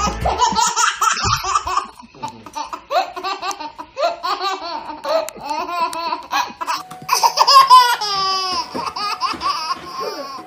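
Baby laughing in a long run of short, breathy bursts of giggles. About two-thirds of the way through, a steady tone starts up under the laughter.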